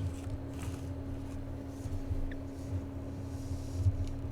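Faint handling noise, a few light rustles and small knocks, over a steady low electrical hum.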